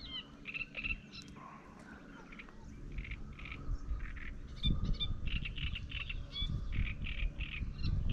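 Small birds chirping and calling in many short, quickly repeated notes, with a low rumble underneath that swells about halfway through.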